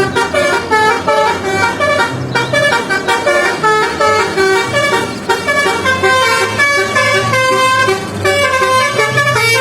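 Musical 'telolet' bus horn playing a fast tune, many short horn notes one after another over a steady low drone.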